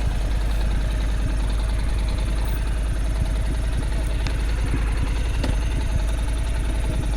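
Motorbike running steadily on the move, with a constant low wind rumble on the microphone.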